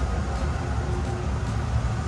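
Steady low rumble and hiss of a moving vehicle.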